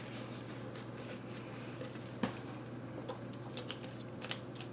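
Faint handling of a plastic squeeze bottle wiped with a paper towel, with a sharp tap about two seconds in and a few light clicks near the end, over a steady low hum.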